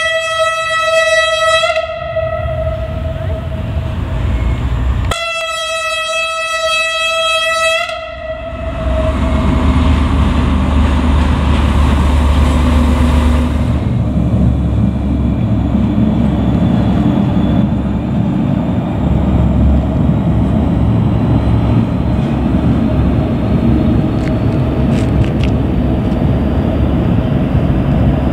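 Diesel freight locomotive sounding a single-tone horn in two long, steady blasts, the second starting about five seconds in and lasting about three seconds. From about nine seconds on, a loud, steady low rumble as the locomotive and its loaded freight wagons pass.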